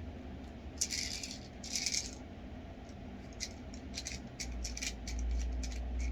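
Airsoft BBs rattling in a plastic speed loader: two short shaken rattles, then a run of small clicks and taps, with a low rumble from about four and a half seconds in.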